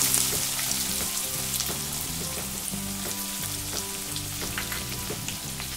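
Chopped onions frying in hot oil with mustard and cumin seeds in a stainless steel kadhai, a steady sizzling hiss just after they go in. Soft background music with sustained low notes plays underneath.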